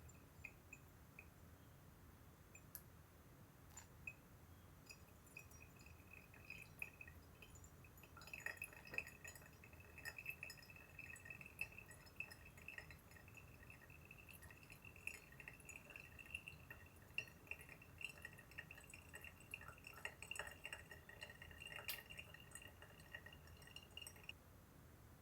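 Faint sound of liquid being poured in a thin, steady stream, with small drips and light clinks, starting about eight seconds in and stopping shortly before the end.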